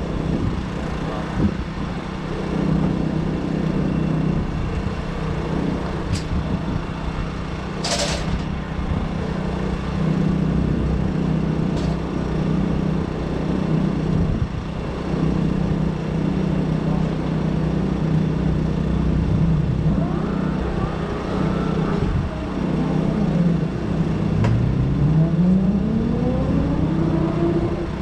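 Race motorcycle engine idling steadily in the pits. Near the end, an engine revs up and back down. There is a short hiss about eight seconds in.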